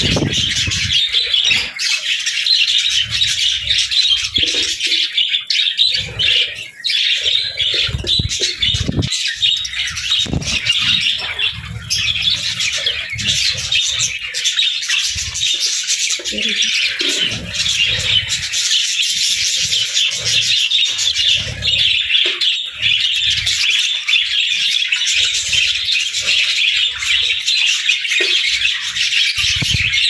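A flock of budgerigars chattering and chirping without a break, with irregular low thumps and flutters from wings underneath.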